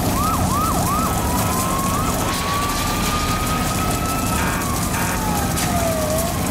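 Emergency vehicle sirens: three quick rising sweeps at the start, then slow rising and falling wails, with a second siren gliding down over it in the second half. A steady rushing noise runs underneath.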